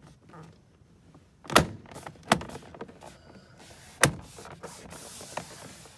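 Plastic speaker grille cover on a Honda Element door trim panel being pressed into place, its clips snapping in with three sharp clicks, followed by scuffing as the hand rubs over the panel near the end.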